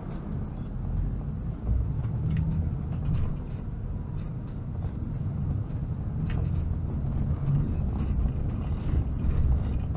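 Steady low rumble of a heavy vehicle driving, heard from inside the cab, with a few short sharp knocks and rattles.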